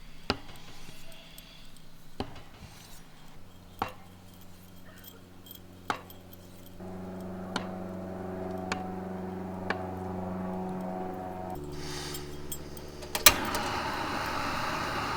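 Kitchen knife cutting tofu on a cutting board: separate sharp knocks, one every second or two, over a steady low hum. Near the end comes a loud click, then a steady rushing noise.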